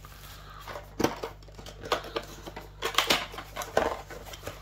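Cardboard miniatures box being opened and its plastic sprue handled: scattered clicks and rustles, with sharper knocks about one, two and three seconds in.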